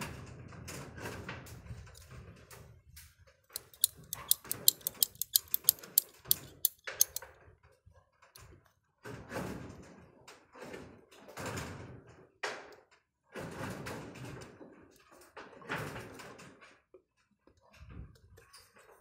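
Hand work on a water pump's PVC pipe fittings: irregular scraping and knocking, with a fast run of sharp clicks, about five or six a second, starting about three and a half seconds in and lasting some three seconds.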